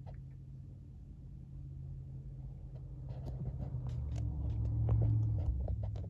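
A heavy vehicle's engine running with a low, steady rumble that grows louder toward a peak about five seconds in, with scattered clicks and knocks over the second half.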